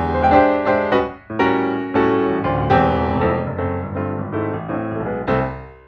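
Piano music playing note by note. It fades out near the end.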